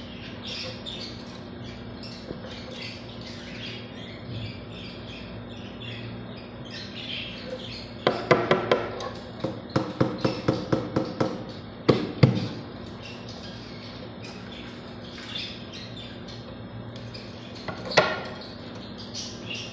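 Caged parrots chirping over a steady low hum, with a run of loud, quickly repeated harsh squawks about eight seconds in and another loud call near the end.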